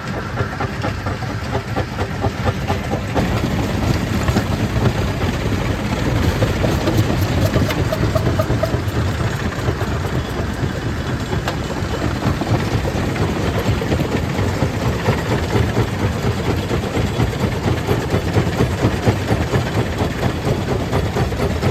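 Stone crusher plant machinery running under load: a continuous heavy rumble with dense, rapid clatter of stone.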